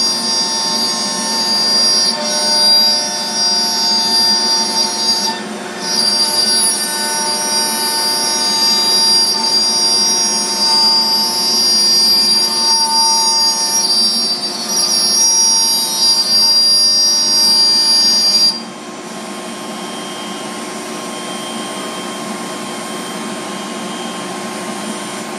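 ShopBot CNC router spindle whining steadily as it cuts 3/4-inch MDF, with a brief dip about five seconds in. About eighteen seconds in the high whine stops abruptly, and a quieter, steady rushing noise of machinery continues.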